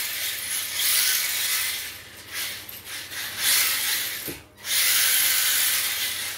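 HSP 94123 Flying Fish 1:10 4WD brushed electric drift car driving and sliding on a tile floor: a hissing rush of tyre and drivetrain noise in surges, dipping about two seconds in and cutting out briefly about four and a half seconds in.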